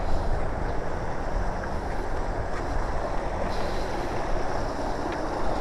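Shallow river water rushing steadily over rocks, with wind rumbling on the microphone.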